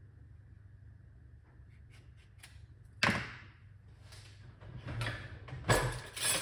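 Kitchen handling noise over a low steady hum: a sudden sharp noise about three seconds in that fades quickly, then softer rustling and another loud sudden noise near the end.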